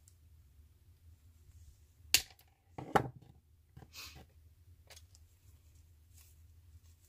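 Wire cutters snipping twice through the wire stems of artificial flowers: two sharp clicks under a second apart, a couple of seconds in, followed by a short rustle of the plastic stems and foliage being handled.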